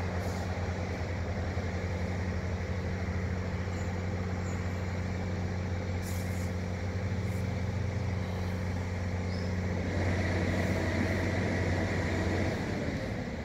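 A vehicle engine idling with a steady low hum. About ten seconds in, the sound grows louder and brighter with a rushing hiss, and near the end the low hum drops away.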